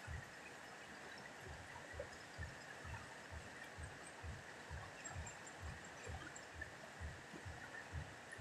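Steady rushing of a wide, muddy river flowing past, with a soft low thump repeating evenly about twice a second.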